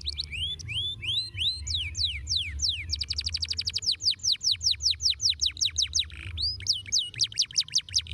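A domestic canary singing: rapid trills of sharply falling whistled notes, broken by slower phrases of longer downward slides, with the trill speeding up about three seconds in.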